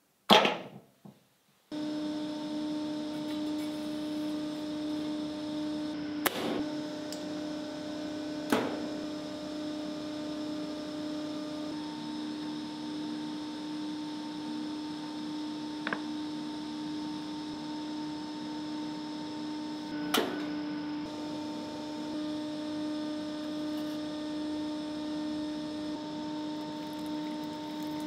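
Steady electrical hum, several even tones held at one pitch, with four sharp clicks spread through it and a brief knock at the very start.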